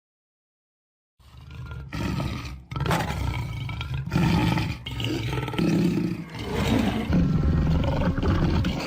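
Lion roaring: a run of deep roars and growls that swell and fade several times, starting about a second in and cutting off at the end.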